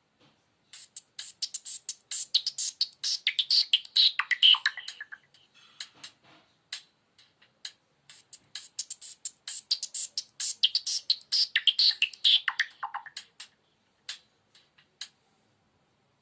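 A Nokia Lumia 520 preloaded ringtone: a busy electronic run of quick clicks and chirps with falling pitch sweeps, played through twice.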